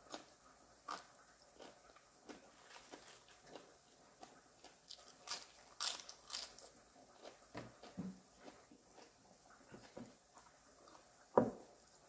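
Close-up chewing and crunching of green papaya salad: irregular wet crackles and mouth clicks, busiest midway. A sharp knock sounds near the end.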